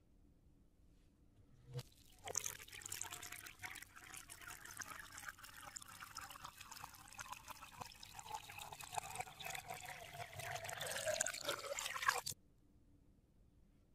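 A thin stream of water pouring and splashing onto plastic toys and into a shallow muddy puddle, starting about two seconds in and cutting off suddenly near the end.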